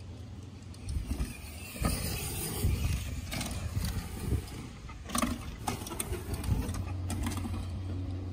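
Mountain bikes riding past over grass: rattling and knocking from the bikes, with sharp clicks and knocks, the loudest about two and five seconds in, over a steady low rumble.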